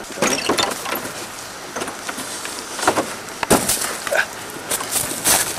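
Irregular crackling and a few sharp snaps, like rustling and footsteps in dry leaf litter and twigs.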